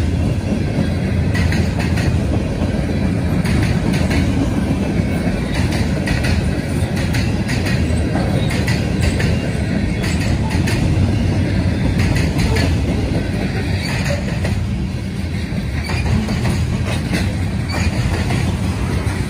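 CSX freight train cars, gondolas then covered hoppers, rolling steadily past: a continuous heavy rumble of steel wheels on rail, with frequent sharp clicks as the wheels cross rail joints.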